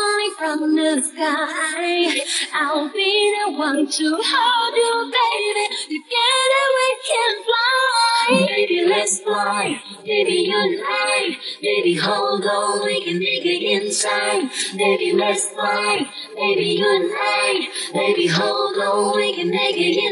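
A pop song: a high female voice singing English lyrics over music, including the line "I'll be the one to catch you when you're falling from the sky".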